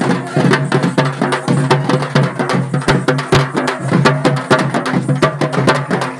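Several large dappu frame drums beaten with sticks in a fast, dense, steady rhythm.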